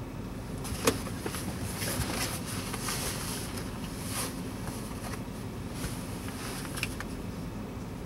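Steady low hum inside a car cabin, with rustling and handling noises from a person moving in the driver's seat. A sharp click comes about a second in.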